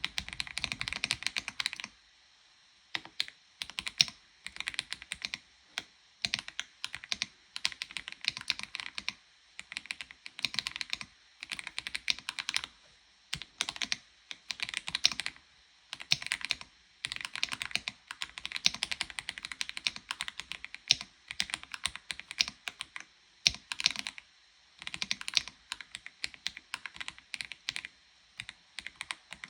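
Typing on an Aula F75 mechanical keyboard fitted with Ice Vein switches and stock keycaps: quick runs of keystrokes lasting a second or two, with short pauses between them.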